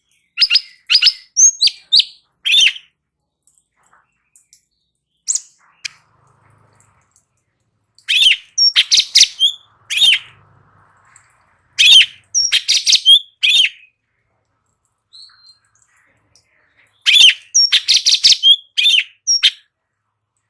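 Cucak cungkok singing in its rapid, continuous 'ngebren' style: loud phrases of quick sharp chirping notes, about five phrases with short pauses between them.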